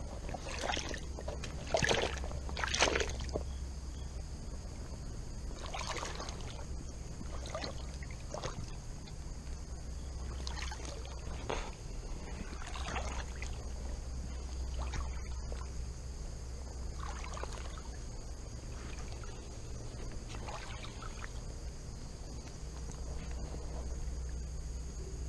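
Creek water sloshing and splashing around a wader's legs in irregular swishes, the loudest about two to three seconds in, over a steady low rumble.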